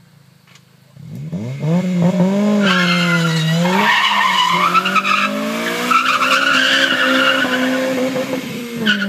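Honda Civic's engine revving up sharply about a second in, then its tyres squealing loudly as the car slides sideways through a turn, the engine held at high revs under the squeal.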